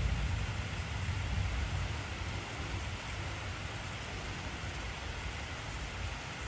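Heavy rain falling steadily, with a deep rumble of thunder dying away over the first few seconds.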